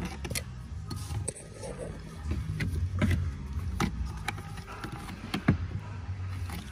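Plastic dashboard trim being worked loose by hand: scattered clicks and knocks as the panel's clips are pried and the panel shifts, over a low steady hum.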